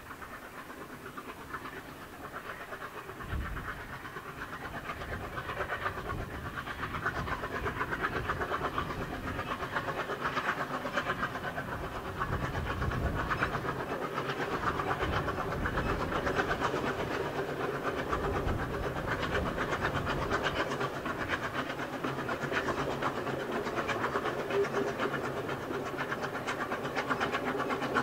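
NG/G16 Garratt steam locomotive working hard up the grade, its exhaust beating fast and steady and growing louder as the train draws nearer.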